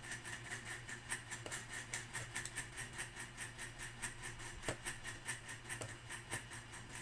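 Quiet room tone: a steady low hum with three faint clicks, about one and a half, four and a half and six seconds in.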